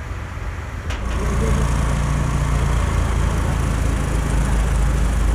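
Telescopic crane's diesel engine running; about a second in it picks up revs and holds them, as it drives the hydraulics to lift a heavy load.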